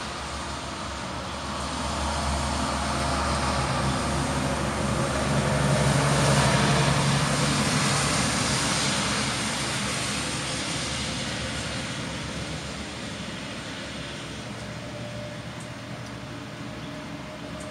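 An aircraft flying past: its engine noise grows louder to a peak about six seconds in, then slowly fades away.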